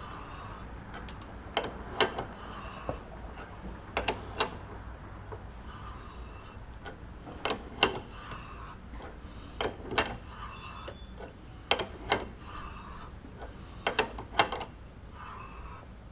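Adjustable wrench clinking on a bronze workpiece held in a lathe's four-jaw chuck: short, sharp metal clinks, mostly in pairs about every two seconds, as the wrench is worked on the part.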